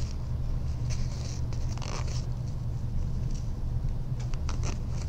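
Hands working a coil zipper's pull through the opening in a cork panel: faint scattered rustles, scrapes and small clicks of cork and zipper being handled, over a steady low hum.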